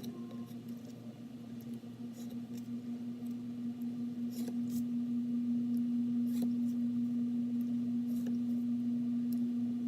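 A steady low electrical hum, with a few short, scattered scratches and clicks from marking or handling a balsa wood strip.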